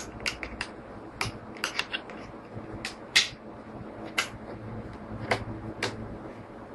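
A small hand tool clicking and tapping against the wooden planks and clamps of a model ship hull being planked. The sharp ticks come at uneven intervals, the loudest about three seconds in, over a faint steady low hum.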